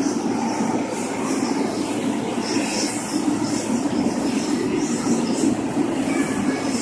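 Jet engines of a Boeing 777 airliner running at taxi power as it rolls slowly: a steady low rumble with a hiss on top that swells now and then.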